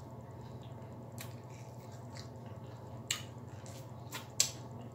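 Close-up eating sounds: chewing and pulling fried chicken wing meat off the bone, with wet mouth clicks and smacks. The sharpest smacks come about three seconds in and twice near the end, over a steady low hum.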